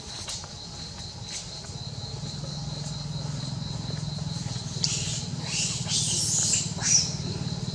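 Outdoor ambience: a steady low motor hum that builds from about two seconds in, under a thin, steady, high insect drone. Near the end come a few brief, scratchy, high-pitched sounds, the loudest at about seven seconds.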